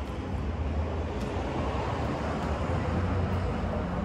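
Steady low rumble of street traffic, with a few faint crunches of someone chewing well-toasted sandwich bread.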